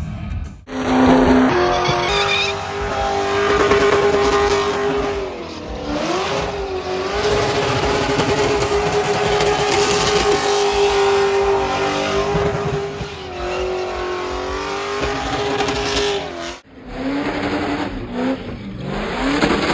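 Car engine revving hard and held at high revs, its note wavering now and then, over a screech of spinning tires: a burnout. The sound breaks off suddenly a little after the start and again about 17 seconds in, then picks up again.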